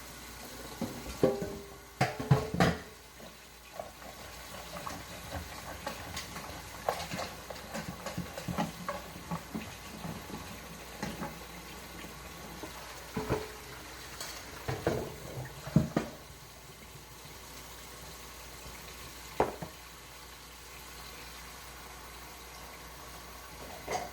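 Dishes, pots and kitchenware clinking and knocking as they are handled and cleaned, busiest in the first sixteen seconds, then a couple of single knocks.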